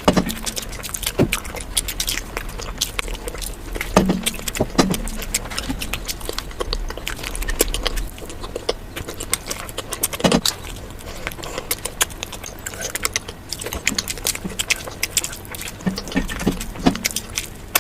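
Eating sounds: a dense run of small crackling clicks from chewing and handling food, with a few louder knocks now and then.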